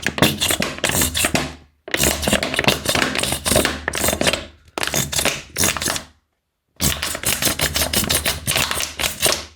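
Plastic bottle crackling and crinkling as it is squeezed, pushing white glue into a balloon stretched over its mouth. The crackling comes in about four bouts with short pauses between them.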